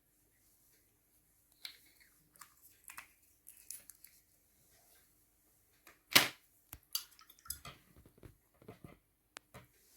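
Scattered small clicks, taps and rustles of painting materials being handled, with one sharper knock about six seconds in followed by a run of lighter taps.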